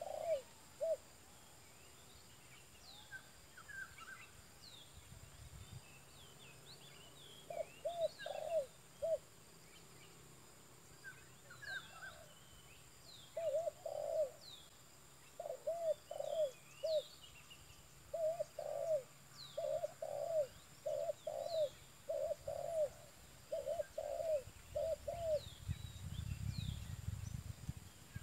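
Spotted dove (tekukur) cooing in repeated short phrases of three or four notes, with small birds chirping higher over it. A low rumble comes in near the end.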